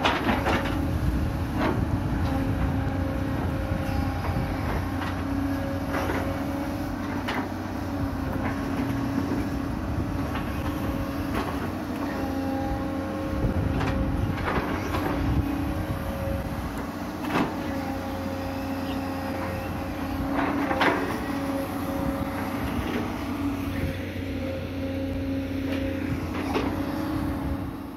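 Hitachi UH045 excavator's diesel engine running steadily under load while it digs, with short knocks and clanks every few seconds as the bucket and boom work the mud of the ditch bank.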